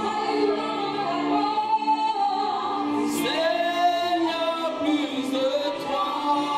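Woman singing a gospel worship song into a handheld microphone, with long held notes and a note sliding up about three seconds in.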